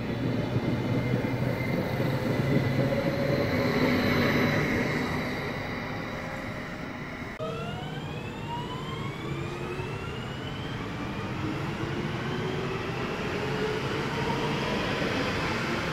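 Electric trains at a platform: first the rumble and steady hum of an electric multiple unit, then a DB Class 1440 electric multiple unit pulling away, its traction drive whining in several rising tones as it gathers speed.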